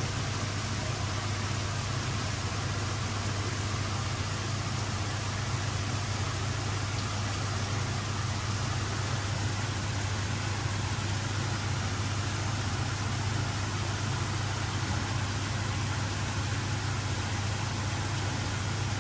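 Steady low hum under a constant rush of water, from a koi pond's pump and filtration system running.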